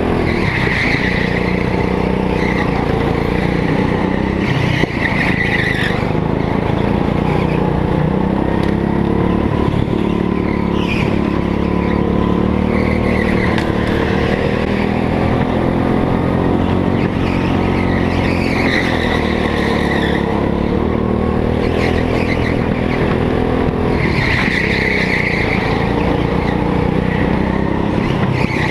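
Go-kart engine heard from on board, rising and falling in revs through a lap of an indoor track. The tyres squeal briefly on the polished floor in the corners every few seconds.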